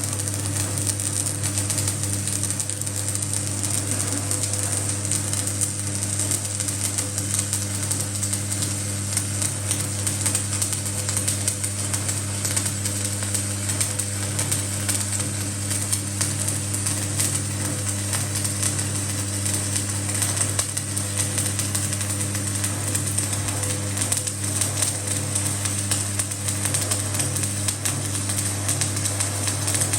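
Electric arc welding: a continuous crackling sizzle from the arc over a steady low hum.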